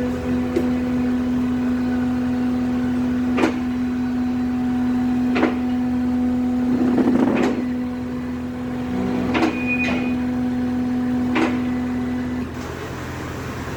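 A motor-driven machine humming steadily at an even pitch, with a sharp click about every two seconds. The hum cuts off about twelve seconds in.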